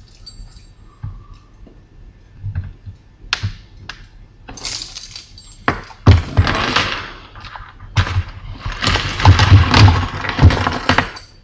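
Stiff plastic blister pack being cut open with a Leatherman knife blade: a few sharp clicks, then crackling, cracking plastic in several spells, loudest in the last few seconds.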